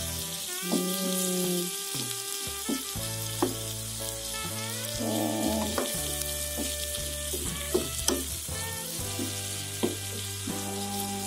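Long beans and vegetables sizzling in oil as they are stir-fried, with a spatula knocking against the pan several times. Background music with held notes plays under it.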